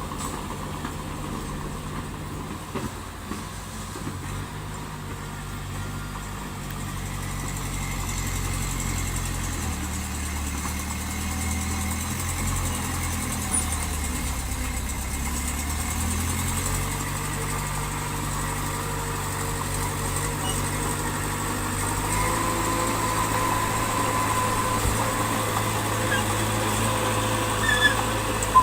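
Diesel engine of heavy earthmoving machinery running steadily, its engine note shifting a few times as the machine works, with a faint higher whine joining near the end.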